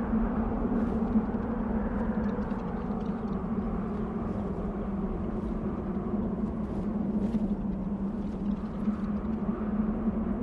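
Desert wind blowing steadily, a continuous low noise with a steady hum-like band in it and faint scattered ticks higher up.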